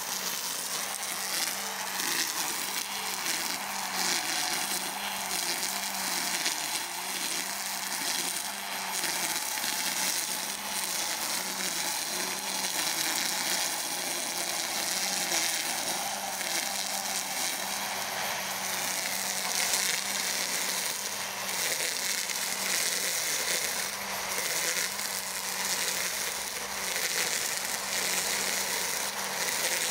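EGO Power+ cordless brush cutter running steadily, its electric motor whining with a slightly pulsing pitch while the spinning head hisses through tall grass.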